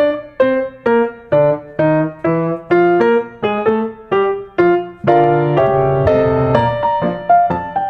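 Background piano music: a melody of single struck notes, about two a second, each dying away, with held chords from about five seconds in.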